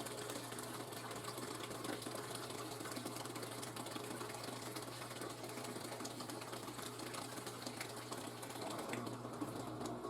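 Top-load washing machine running in its spin cycle: a steady motor hum under a busy mechanical whir and rattle. The higher part of the sound thins out about nine seconds in.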